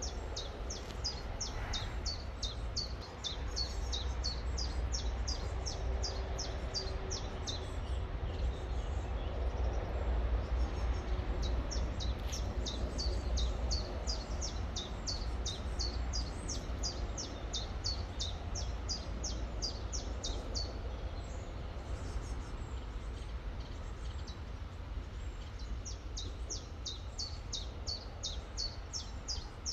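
A songbird repeats a quick, high, downward-sliding note about three times a second in long runs, pausing twice. Beneath it is the steady rush of a river and a low rumble.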